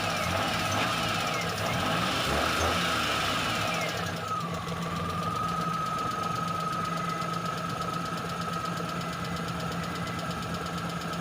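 Vehicle engine running after its carburetor was overhauled. The engine note drops about four seconds in, then settles to a steady idle with a faint, even whine.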